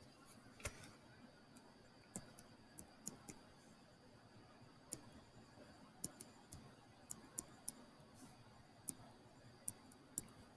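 Irregular sharp clicks, about twenty, roughly one per stroke as an equation is hand-written on screen with a pen tool, over a faint steady high whine.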